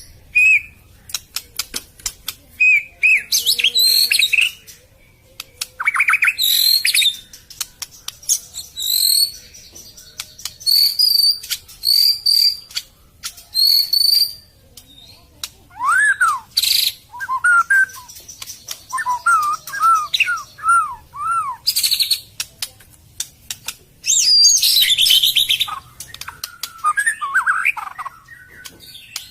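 White-rumped shama (murai batu) singing a long, varied song close to the microphone: sharp clicks, high whistled phrases, and about halfway through a run of lower, repeated arching notes.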